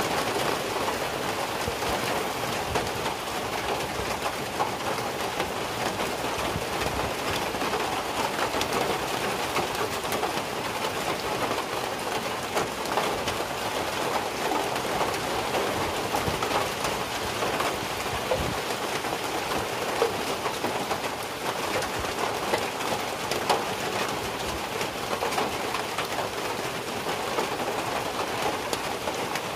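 Steady rain, with drops dripping from the roof edge overhead: an even hiss laced with many small drop hits.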